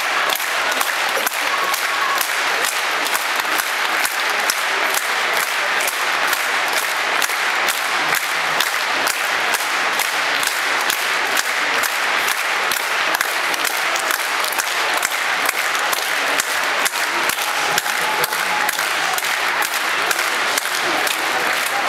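Large theatre audience applauding steadily, the claps falling into an even beat.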